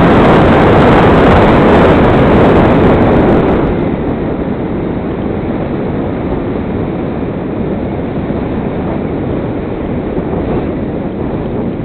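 Loud, steady rush of propeller and wind noise on a model airplane's onboard camera microphone. About four seconds in it drops to a softer wind rush, as the power comes off for a gliding descent.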